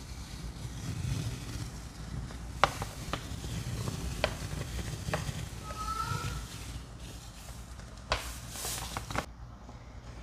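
Thick soapy paste of cleaning products, grated soap and baking soda being stirred and squished, with wet crackling and a few sharp clicks; a louder crackling burst comes near the end.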